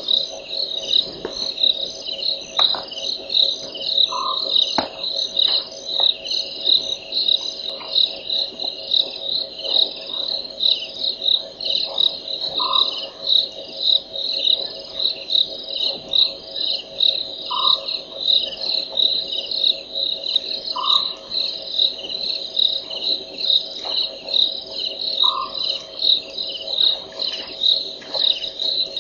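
Crickets chirping steadily in a high, even rhythm of about two chirps a second, with a short, lower call from another animal every few seconds.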